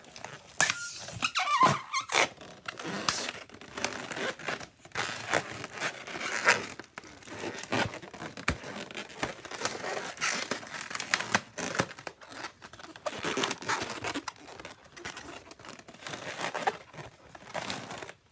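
Inflated latex twisting balloons being twisted and handled, rubbing and squeaking against each other and the fingers in irregular bursts, with a wavering squeal about a second in.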